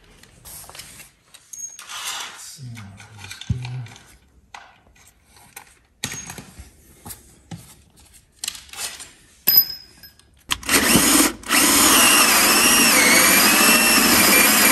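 Knocks and clatter of handling, then about ten seconds in a cordless drill starts boring up into a motorhome's solid wooden floor from underneath. It stops briefly just after starting, then runs on loudly, its motor whine wavering in pitch as the bit cuts.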